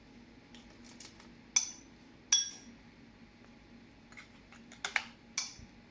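Kitchen utensils clinking against dishware: two sharp ringing clinks about one and a half and two and a half seconds in, then a few lighter clicks near the end.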